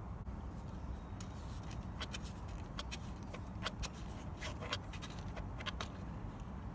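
A run of light, irregular clicks and taps from hands handling small parts or tools, over a steady low rumble.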